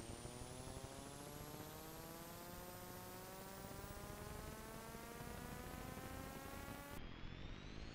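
Faint electrical buzz over steady hiss: a stack of tones that slowly rises in pitch, then drops back suddenly near the end. No sound from the filmed scene.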